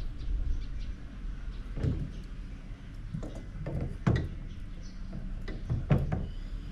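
About half a dozen irregular hollow knocks and thuds on a plastic barrel, the loudest about two, four and six seconds in, over a steady low wind rumble.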